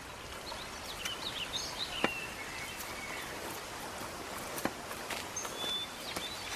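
Woodland ambience: the steady rush of a forest stream with birds chirping and whistling over it, and a couple of sharp clicks.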